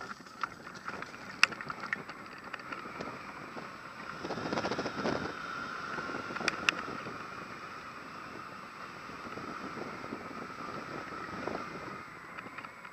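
Airflow buffeting the microphone of a camera mounted on a hang glider's wing during a low training flight. It is a steady noise with a lasting high tone, louder about four seconds in, with a few sharp clicks.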